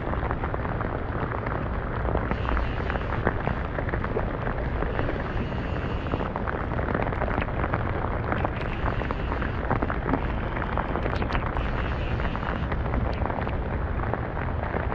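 Heavy rain falling on a rain suit and on the camera close by: a dense, steady crackle of countless drop impacts.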